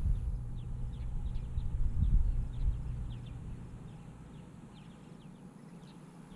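Low, uneven rumble that is loudest for the first few seconds and then fades, with faint, short bird chirps repeating throughout.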